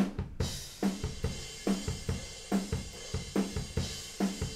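Raw, unprocessed recording of an acoustic drum kit playing a steady rock beat as picked up by a room microphone: kick and ringing snare hits under a constant wash of cymbals and hi-hat, the snare landing a little more than once a second.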